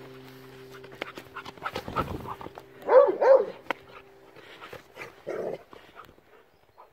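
Appenzeller Sennenhund dog giving two short, pitched yelping calls about three seconds in, among smaller scattered sounds of the dog moving.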